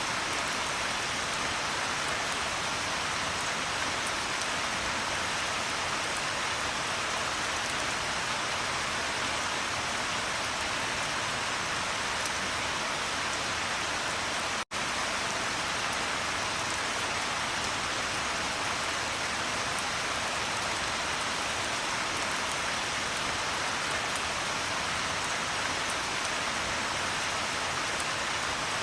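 Steady, dense rain falling on a surface, an even hiss with fine drop ticks, broken by a split-second gap about halfway through.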